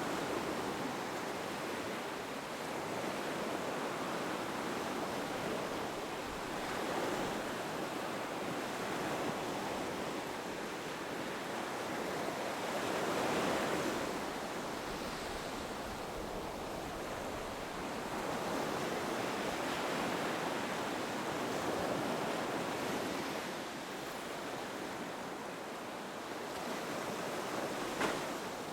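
Ocean surf breaking on a beach: a steady wash of waves that swells and recedes every several seconds, with one brief sharp click near the end.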